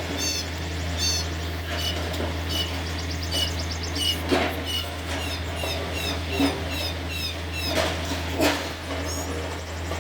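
Birds chirping and squawking repeatedly over a steady low hum, with a quick trill about three seconds in and a few sharp knocks near the middle and toward the end.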